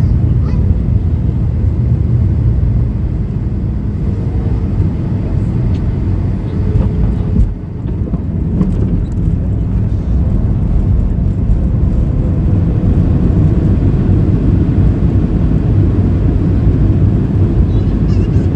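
Cabin noise inside a Boeing 737-800 landing, with its CFM56-7B engines and the airflow making a steady low rumble. The noise drops briefly about seven and a half seconds in, around touchdown, then the rumble of the rollout on the runway grows somewhat louder.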